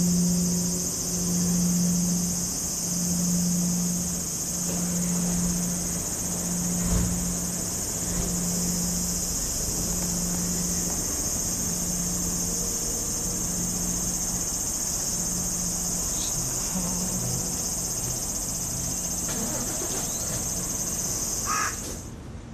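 A steady, high-pitched insect chorus shrilling without a break, cutting off suddenly near the end. Under it, a low hum pulses on and off about once a second and fades away, with a single knock about a third of the way in.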